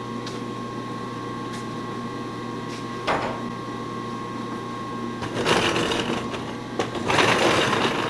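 10-horsepower rotary phase converter running with a steady electric hum. A sharp click comes about three seconds in, and two stretches of rasping handling noise follow in the second half.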